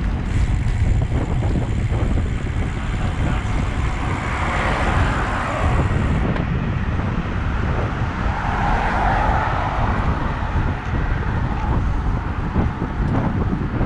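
Wind buffeting the microphone of a handlebar-mounted camera on a moving road bike: a steady low rumble, with a brighter rush of noise twice.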